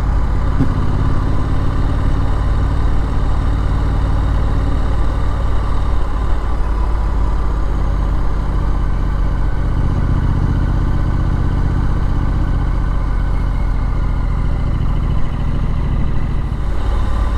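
Triumph Street Scrambler's parallel-twin engine idling steadily.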